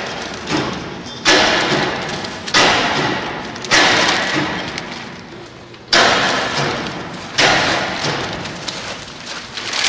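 Large blue VCI plastic bag liner being shaken and flapped: about six sudden, loud rustling swishes, each fading over about a second.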